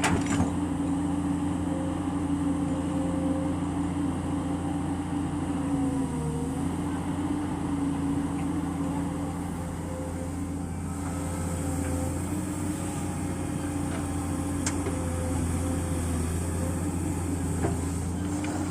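Komatsu PC200 hydraulic excavator's diesel engine running steadily while working. The pitch dips briefly about six seconds in, and the engine eases slightly around ten seconds.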